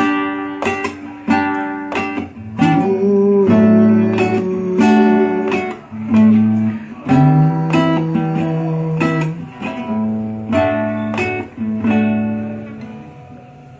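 Acoustic guitar playing a slow introduction of plucked and strummed chords, the notes left to ring, fading down near the end.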